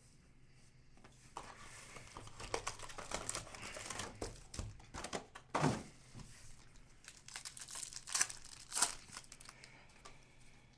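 Trading-card pack wrapper crinkling and tearing as a pack of football cards is ripped open and handled, in irregular rustles and short rips that start about a second in.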